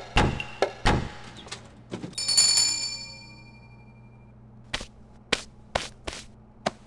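Percussive music with woodblock-like knocks breaks off just after the start. A single bright bell ding then rings out and fades over about two seconds, followed by four or five short, evenly spaced taps.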